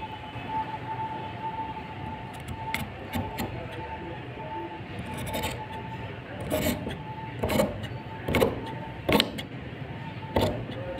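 Large steel tailor's shears cutting through cotton fabric on a wooden table. A few faint clicks early, then a series of sharp snips about one a second through the second half.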